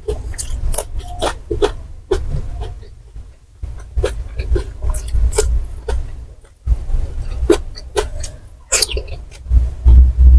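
Close-miked chewing of crispy fried snacks: irregular crunches and wet mouth clicks over a low rumble.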